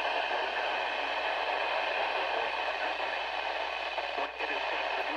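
Steady static hiss from a weather radio receiver, with a brief dip about four seconds in.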